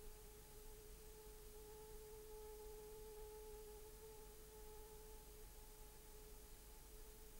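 Near silence: a faint steady tone with a fainter overtone above it, over background hiss from the tape transfer.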